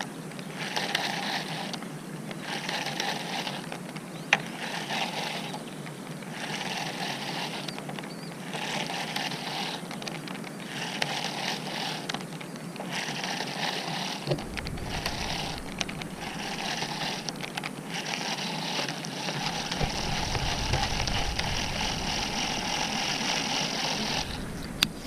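Baitcasting reel being cranked, a mechanical whirr in bursts of about a second with short pauses between, then steadily for the last few seconds: a topwater lure being worked back in. Low wind rumble on the microphone comes in partway through.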